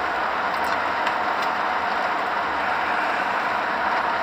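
Steady, even background noise like a continuous hiss, holding level throughout with no distinct events.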